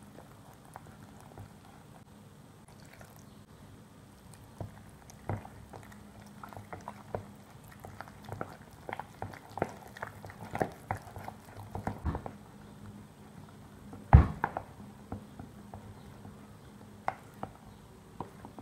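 Spoon stirring a thick flour batter in a plastic bowl: wet squelching with irregular clicks and knocks of the spoon against the bowl, and one louder knock late on.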